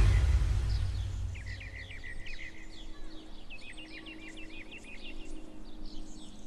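Birds chirping over a soft steady background, with a fast run of repeated chirps in the middle. The tail of a loud swoosh transition effect fades out in the first second or so.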